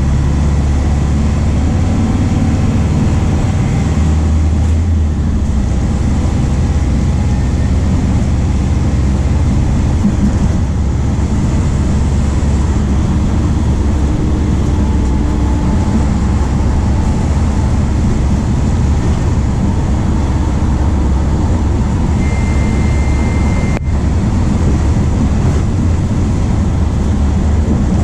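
MAN D0834 four-cylinder turbodiesel of a VW 17.230 OD bus running, a loud steady low drone. Near the end a short high beep sounds, followed by a click.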